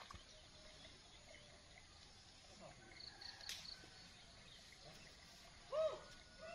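Faint outdoor background with no machine running: a few faint high ticks and a sharp click about three and a half seconds in, then a short pitched call, about half a second long, near the end.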